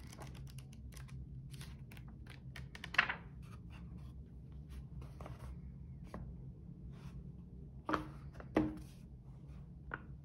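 Paper pages of a hand-bound notebook being flicked and handled, many small rustles and clicks, with a few louder knocks as the book is closed and laid down on a wooden table, the loudest two near the end.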